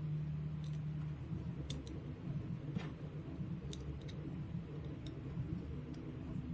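Scattered light clicks of small plastic and metal parts being handled, about seven over a few seconds, over a steady low hum.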